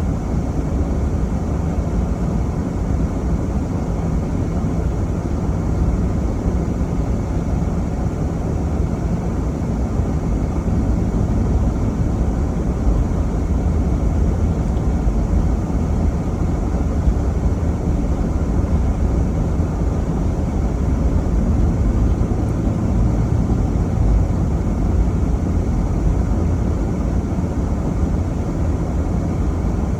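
A car driving at a steady pace: a continuous low rumble of engine and road noise, even throughout with no sudden events.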